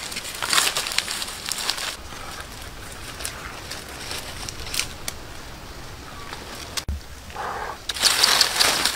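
Dry leaves and twigs rustling and crackling underfoot and under hand. Near the end there is a louder, denser crinkling of dry leaves.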